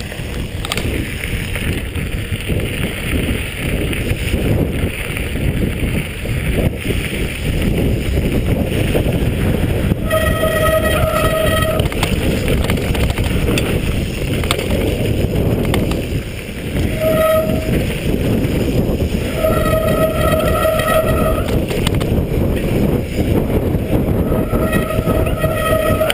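Wind buffeting the camera microphone and a mountain bike's tyres rumbling over a rocky dirt trail on a descent. From about ten seconds in, a steady whine from the bike comes and goes in several one- to two-second spells.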